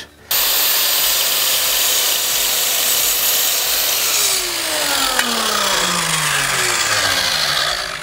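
Silverline chop saw (mitre saw) cutting through an oak offcut with a loud, steady noise. About halfway through, the motor is released and the blade winds down with a falling whine.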